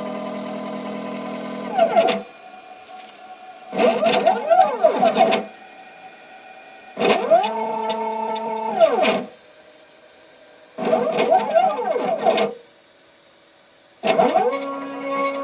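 CNC machine's stepper motors driving the axes through a series of moves: a whining tone in several pitches that rises as each move speeds up and falls as it slows, four moves of about two seconds each with quieter pauses between.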